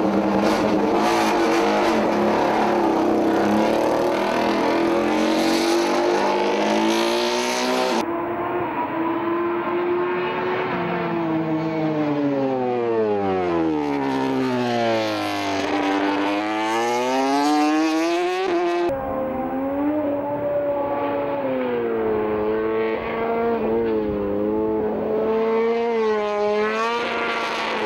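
Honda RC213V MotoGP bike's 1000cc V4 engine running at high revs, heard in three cut-together shots. It holds a steady high note at first, then the note falls and rises back up as the bike slows and accelerates again, then rises and drops repeatedly through throttle and gear changes.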